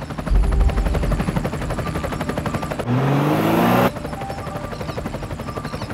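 A small engine running with a fast, rattling putter, revving up once about three seconds in with a rising pitch, then dropping back abruptly a second later.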